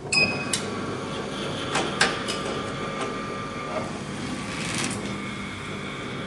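HJ-50A automatic binding machine running in drill mode, drilling holes through a stack of paper: a steady mechanical whir, with a few sharp clicks in the first two seconds or so.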